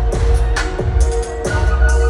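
Loud electronic dance track with heavy bass and a steady beat, roughly two hits a second, playing over a concert sound system.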